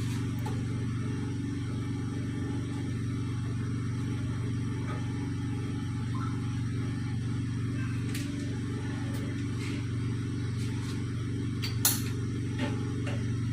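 Steady low hum, with a few faint clicks and one sharper click near the end.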